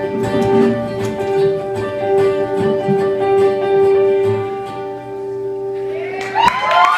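Live ensemble's closing chord ringing out on strummed guitars with a held note, fading; about six seconds in, the audience breaks into whoops and cheering.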